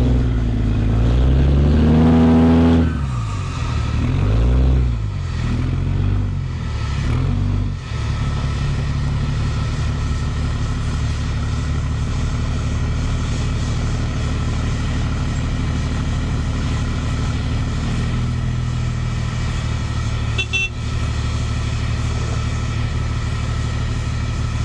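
Armored vehicle's engine revving up and down several times, then settling about eight seconds in to a steady, even running hum.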